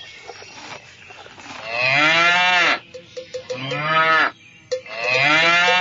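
Cow mooing three times, each moo a long call that rises and then falls in pitch.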